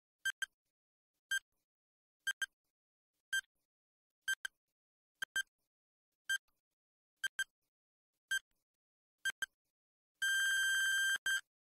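Countdown timer sound effect: a short, high, pitched beep about once a second, some of them doubled, followed near the end by a steady buzzer tone about a second long marking time up.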